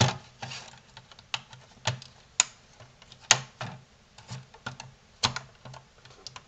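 Irregular sharp plastic clicks and small scrapes as a metal pry tool works loose the snap clips of a PlayStation 4 power supply's plastic casing. Two louder snaps come in the middle.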